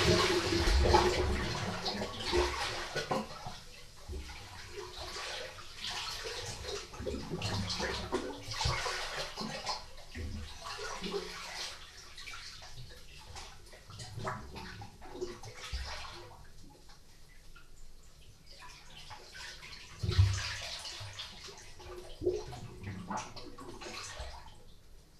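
Sea water surging in and out of a small rock cave at the water's edge, the sea's tidal 'breathing': repeated swells that rise and fall, loudest at the start and again in a sharp surge about twenty seconds in, fading near the end.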